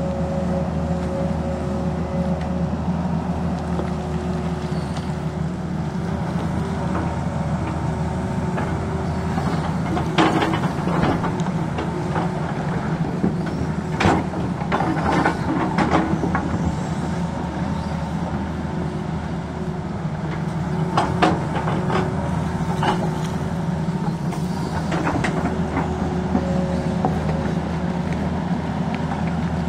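Tata Hitachi crawler excavator's diesel engine running steadily as it digs. Several bouts of clanking and scraping as the bucket works into rock and stones, about a third of the way in, around the middle, and about two-thirds through.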